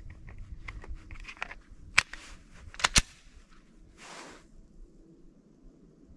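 Handling sounds from a 10 mm semi-automatic pistol between shots: a few sharp clicks, the loudest about two and three seconds in, then a soft rustle as the pistol is raised to aim.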